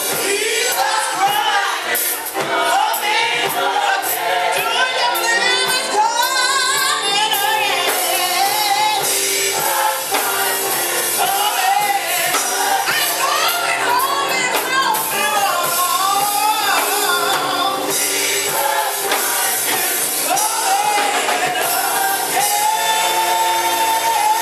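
Live gospel choir singing with a female lead vocalist over band accompaniment, with tambourine. A long held sung note near the end.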